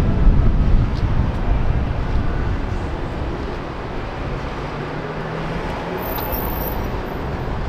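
Outdoor background noise with a low, uneven rumble that eases off after a few seconds.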